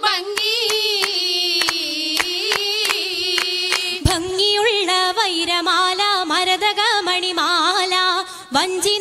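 An Oppana song sung by a single high female voice with a wavering, ornamented melody, accompanied by the dancers' sharp rhythmic hand claps through the first half. About four seconds in there is one heavy thump, after which the claps thin out while the singing goes on.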